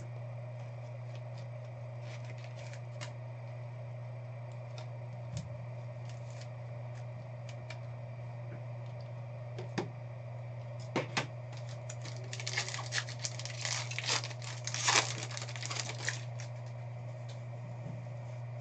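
Computer keyboard and mouse clicks: scattered keystrokes, then a quick flurry of typing about two-thirds of the way through. A steady low electrical hum runs underneath.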